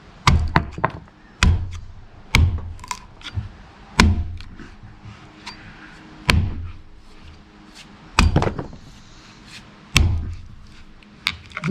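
Axe chopping into a large log to trim it down: about seven heavy thunks spaced one to two seconds apart, with lighter knocks and ticks between them.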